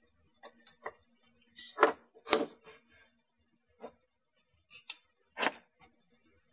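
Metal clamps clicking and clacking and wood knocking on a plywood workbench as a locking face clamp is squeezed onto a scrap-wood jig and a second clamp is fitted to hold the board to the bench. Irregular short clicks and knocks, the loudest two about two seconds in.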